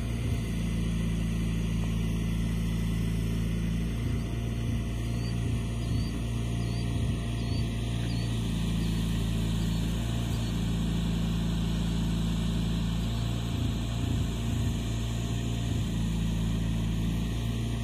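Steady low rumble, with a few faint high chirps about five to nine seconds in.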